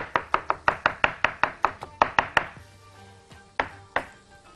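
Knife chopping soft roasted eggplant and roasted peppers on a wooden cutting board, with quick even chops about five a second. The chopping pauses just past halfway, with one chop near the end. It is a coarse rough-chop toward a mash for the eggplant salad.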